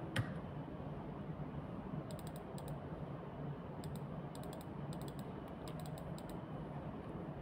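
Typing on a computer keyboard in short runs of keystrokes, one click near the start, then a run about two seconds in and more between about four and six seconds.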